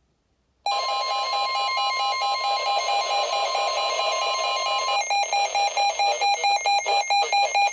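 NOAA Weather Radio warning alert: a steady alarm tone sounds for about four seconds together with a rapid electronic beeping, and the beeping keeps on alone after the steady tone stops. It marks the start of a new severe thunderstorm warning broadcast.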